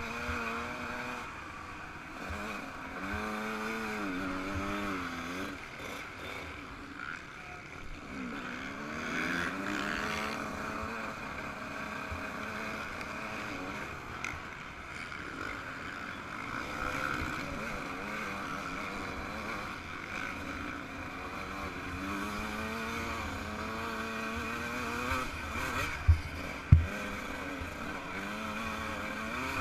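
Yamaha YZ125 single-cylinder two-stroke motocross engine under hard riding, its pitch repeatedly rising and falling as it revs and shifts, over a steady rush of wind and sand. Two sharp knocks come close together near the end.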